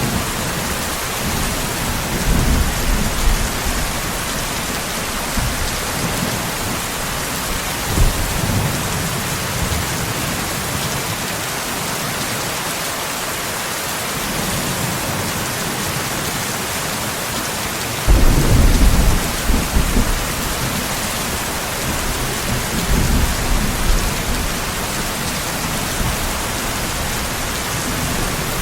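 Steady heavy rain with thunder rumbling underneath, swelling several times; the loudest roll of thunder starts suddenly about two-thirds of the way through and rolls on for a few seconds.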